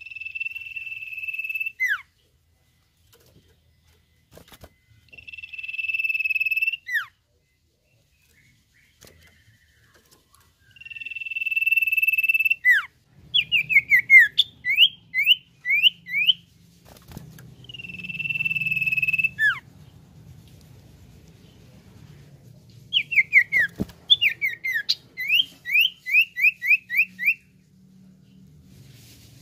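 Common iora (cipoh) singing. Its long, level whistles, each nearly two seconds and ending in a quick downward slur, come four times. They alternate with two runs of short, sharply sweeping notes, about two a second.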